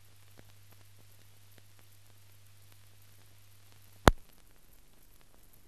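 Faint hiss and low hum of an old film soundtrack with scattered faint crackles; a single sharp pop about four seconds in, after which the hum stops.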